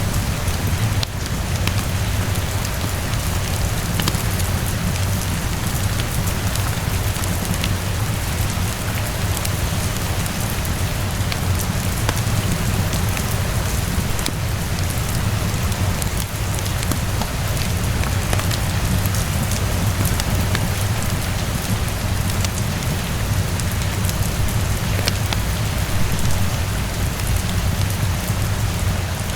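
Steady rainfall over a constant low rumble, with scattered sharp crackles from a fireplace mixed in.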